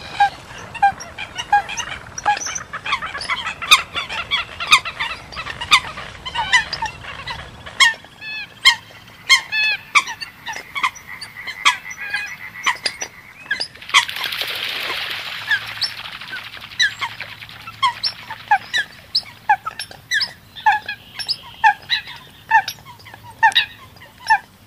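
Eurasian coots calling: a dense run of short, sharp calls, several a second, with a hissing noise for a couple of seconds about halfway through.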